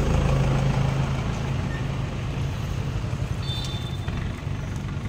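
A motor vehicle's engine running steadily at idle as a low hum, which drops away about a second in and leaves a low rumble. A brief high chirp comes near the end.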